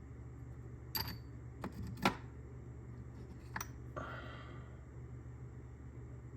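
Taps, dies and their box being handled: a few sharp clicks and knocks, the loudest about two seconds in, then a brief rattle near four seconds, over a steady low hum.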